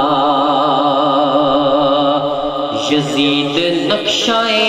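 Man singing a long, wavering held note of a devotional Urdu manqabat into a microphone. The melody shifts and brightens about three seconds in.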